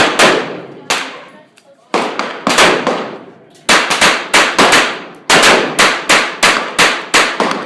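.22 rimfire handgun firing shot after shot, about twenty sharp cracks, each trailing off in a short echo. Most come about a third of a second apart, with a few short pauses between strings.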